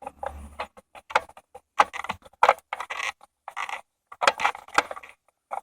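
A screw being tightened by hand into the ashtray's fitting, heard as short, irregular scraping and clicking strokes as the tool turns it.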